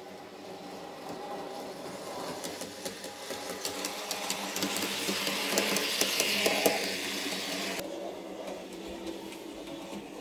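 N-scale model train running on the layout's track: a small electric motor hum with rapid wheel clicks, swelling to its loudest about six to seven seconds in, then dropping off abruptly about two seconds before the end.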